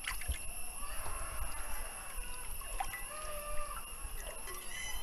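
Hands swishing and rubbing garlic cloves in a large pot of water, with short hen clucks in the background and a steady high whine.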